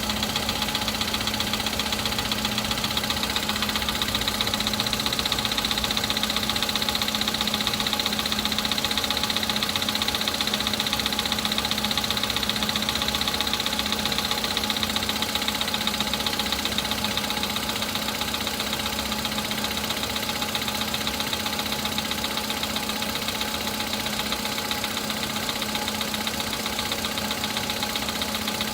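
Volkswagen Polo's 1.6-litre CFNA four-cylinder petrol engine idling after a cold start with a steady, rapid knock. The knock comes from the pistons and fades as the engine warms up.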